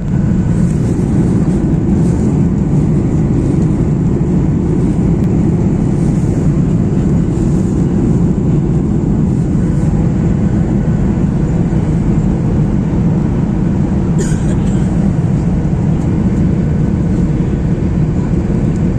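Steady cabin noise of a Boeing 737-800 airliner: a loud, even, low rumble of its CFM56 jet engines and the airflow past the fuselage. One short sharp rattle about fourteen seconds in.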